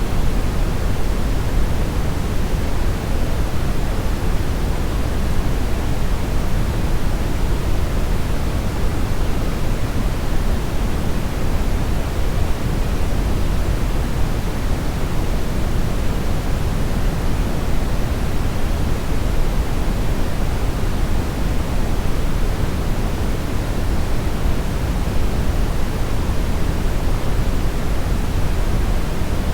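Steady synthetic brownish noise: an even, unbroken hiss-rumble weighted toward the low end, with no changes or events.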